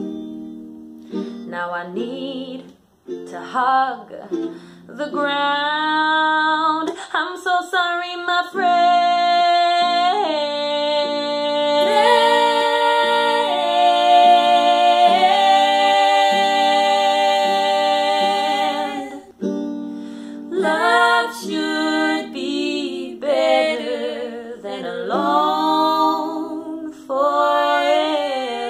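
A woman singing a slow song with long held, wavering notes, accompanied by an acoustic guitar.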